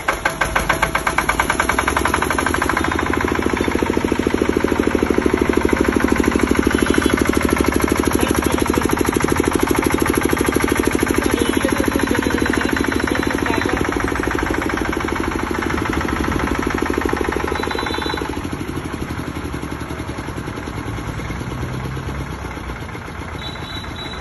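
Single-cylinder 10 kVA diesel generator set firing up on its electric starter and then running steadily, with the rapid even knock of its single cylinder. It is somewhat quieter for the last six seconds or so.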